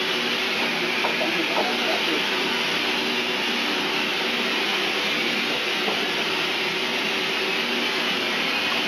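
Steady whirring machine noise: a motor's hum under an airy hiss, with a few faint knocks of labware about a second in.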